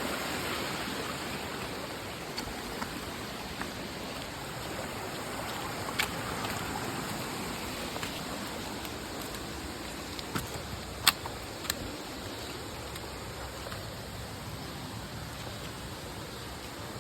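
Steady rushing outdoor noise with a few sharp clicks and taps, the loudest about eleven seconds in.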